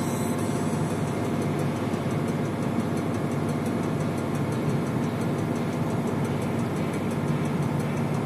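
Steady engine drone and road noise of a vehicle driving at a constant speed, heard from inside the vehicle.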